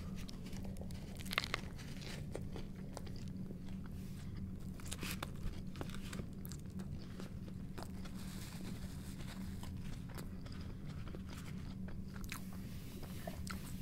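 A man bites into a toasted bacon sandwich and chews it close to the microphone, with crisp crunches and wet mouth sounds, the loudest crunch about a second and a half in. A steady low hum runs underneath.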